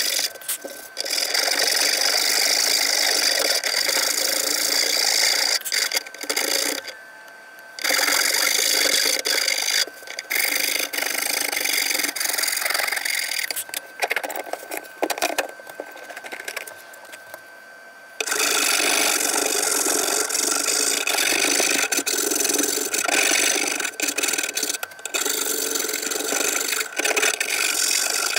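A hand file rasping back and forth across cypress wood in quick, repeated strokes. It pauses briefly about seven seconds in and goes quieter for several seconds past the middle before the strokes pick up again.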